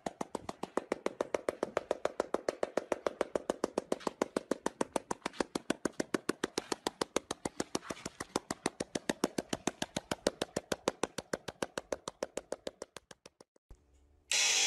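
A seal making a rapid pulsed croak: an even train of knocks, about eight a second, that goes on for some thirteen seconds and then stops.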